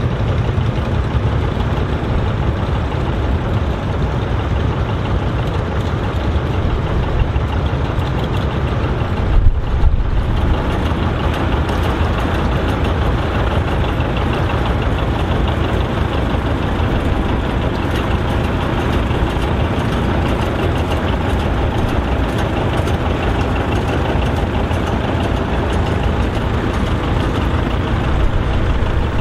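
Vintage farm tractor engines running steadily at low speed as tractors drive past in a line, with a brief low thump about nine and a half seconds in.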